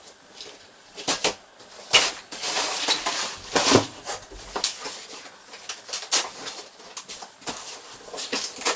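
Handling noise from a pushchair: irregular plastic clicks and knocks mixed with fabric rustling and scraping as the seat unit and frame are worked by hand.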